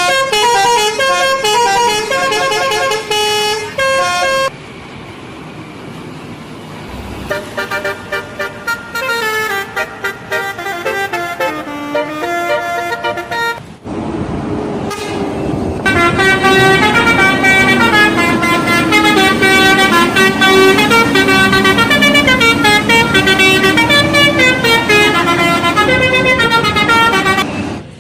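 Indonesian bus telolet horns, multi-note musical air horns, playing quick tunes. A loud burst of rapid notes comes first. A few seconds later a softer tune follows. The last is a long, loud tune lasting about eleven seconds, which stops suddenly just before the end.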